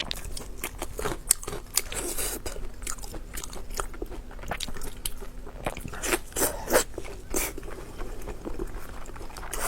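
Close-miked eating: a person biting and chewing food with a dense run of sharp, irregular crunching clicks, heaviest about six to seven seconds in.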